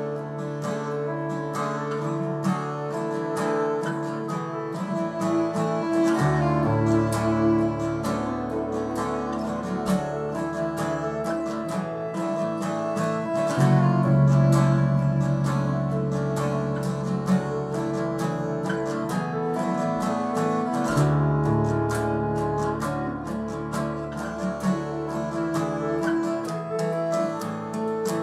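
Background music: acoustic guitar picking and strumming over a bass line that changes chord every several seconds.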